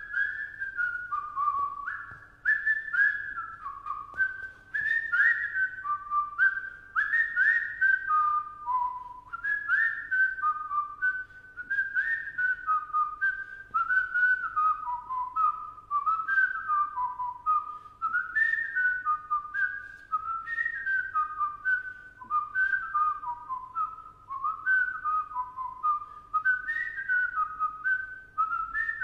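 A person whistling a tune by mouth: a continuous melody of clear notes stepping up and down, in phrases broken by short pauses for breath.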